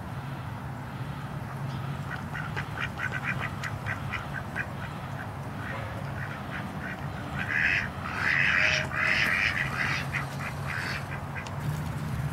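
A group of domestic ducks quacking: first a quick run of short, soft quacks at about five or six a second, then louder, fuller quacking about two-thirds of the way through.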